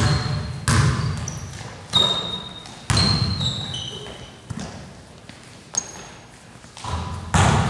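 Basketball bouncing on a hardwood gym floor, each bounce echoing in the hall, with short high sneaker squeaks. The bouncing stops for a few seconds in the middle and starts again near the end.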